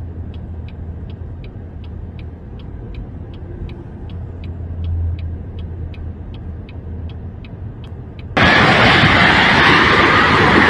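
A car engine idles with an even ticking of the turn-signal or hazard-light relay, about three ticks a second. Near the end a much louder rushing noise cuts in suddenly.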